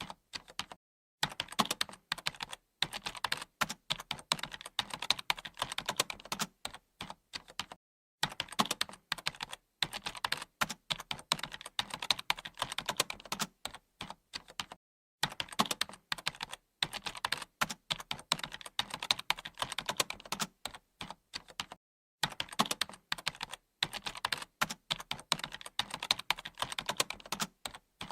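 Computer keyboard being typed on: rapid, continuous key clicks in long runs, broken by short pauses about every seven seconds.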